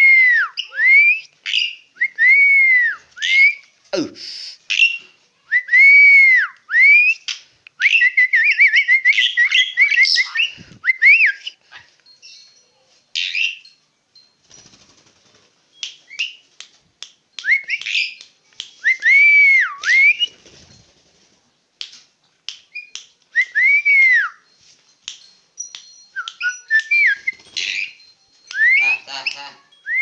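Asian pied starling (jalak suren) singing: a run of loud whistles, each rising then falling, mixed with a fast warbling trill a few seconds in and scattered clicking, chattering notes.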